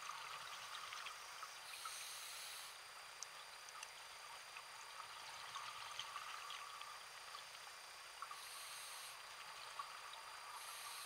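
Underwater sound picked up through a diving camera: a constant faint crackle of small clicks, with a short hiss of scuba regulator breathing three times, about two seconds in, near eight seconds and again near the end. A faint steady high tone runs underneath.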